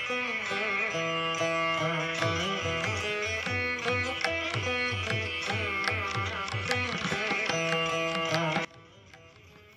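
Background instrumental music in an Indian classical style: a plucked string melody over a drum whose low strokes bend downward in pitch. It cuts off suddenly near the end.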